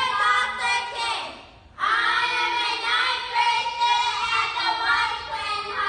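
Children's voices singing a song, with a short break about a second and a half in before the singing resumes with longer held notes.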